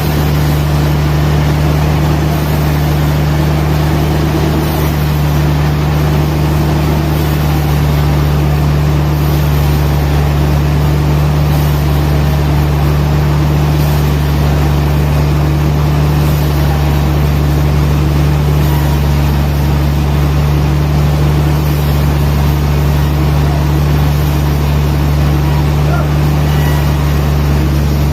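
Heavy machinery running at a steady pitch, a loud low drone with no change throughout, typical of a sawmill engine or motor running.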